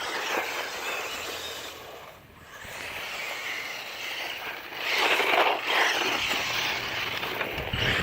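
Traxxas Mini E-Revo RC truck driving through grass: a whir of electric motor, drivetrain and tyres in the grass. It fades about two seconds in and swells again, loudest about five seconds in, as the truck moves away and comes back.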